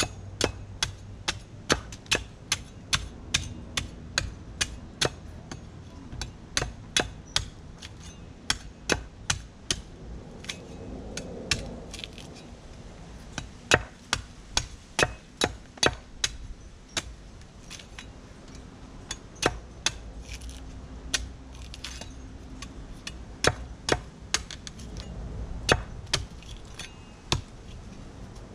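A knife blade chopping repeatedly into a coconut's husk, sharp strikes about two or three a second in runs broken by short pauses.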